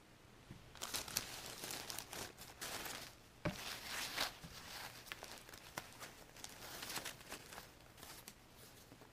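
Plastic packaging crinkling and rustling as a coil of poly foam backer rod (caulk saver) is pulled from its bag, starting about a second in, with one sharp knock about three and a half seconds in.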